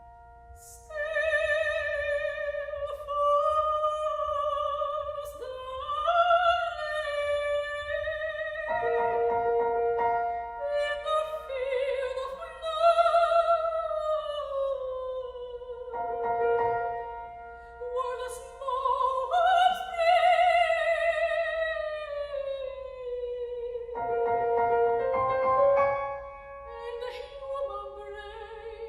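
Classical soprano singing long, wavering lines with wide vibrato over sustained piano chords, with fresh chords struck about every seven or eight seconds.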